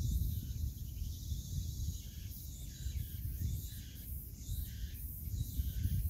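Wind buffeting the microphone as a fluctuating low rumble, over faint high-pitched insect chirring and the crackle of bubbles popping in the tidal mudflat, which come and go.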